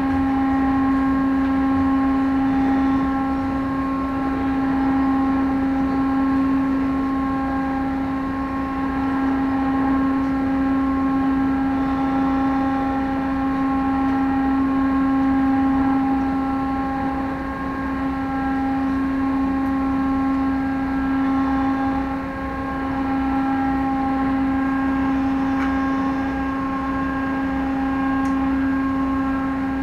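The car ferry's engines drone steadily, a constant-pitched hum with overtones above it, over a rushing background.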